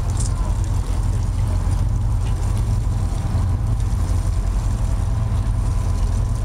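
Cruise boat's engine running steadily, a low, even rumble.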